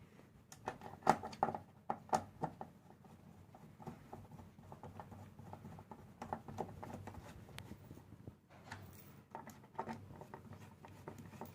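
Hard plastic clicks and scraping as a keyboard's octave key assembly is fitted and screwed into the plastic chassis of a Nektar Impact LX49 MIDI keyboard. The loudest clicks come close together in the first two or three seconds, then quieter scratching and light clicks of screwdriver work.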